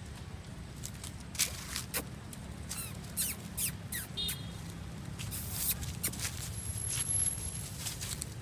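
Footsteps crunching and rustling through dry fallen leaves, an irregular run of crackles, over a low steady hum. A few brief high squeaks come near the middle.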